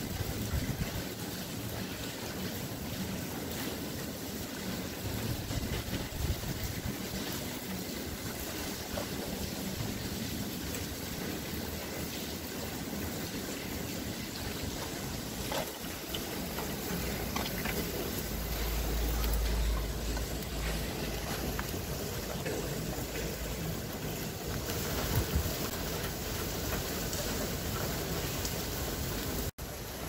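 Steady rushing noise of wind and falling snow outside a window, with a brief low rumble about two-thirds of the way through.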